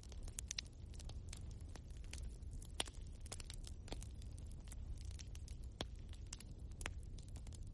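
Wood fire burning in a fireplace, with a steady low rumble and frequent irregular crackles and pops from the logs, a few sharper pops standing out.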